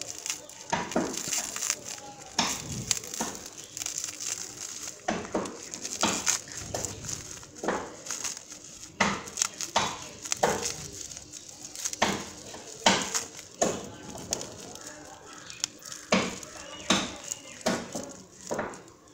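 Plastic bubble-wrap packaging crinkling and crackling as hands pull it apart and peel it open, in irregular crackles one after another.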